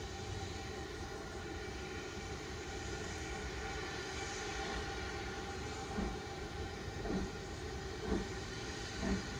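Distant steam locomotive approaching: a steady rumble, with its exhaust beats becoming audible from about six seconds in, roughly one a second.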